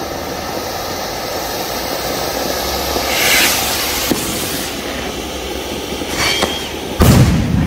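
Swiss fountain firework (Vulkan) spraying sparks with a steady hiss, which swells to a louder rush about three seconds in. About seven seconds in comes a single loud bang, the report of a salute rocket bursting overhead.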